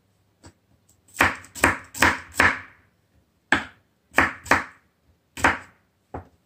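Kitchen knife slicing garlic cloves on a wooden cutting board: about eight separate knocks of the blade on the board, unevenly spaced.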